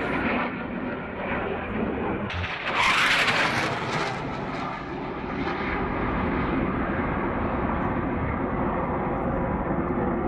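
Military jet aircraft engines heard as a steady rumble, with a louder, sharper rush from about two and a half to four seconds in as a jet passes closer, then a steady rumble again.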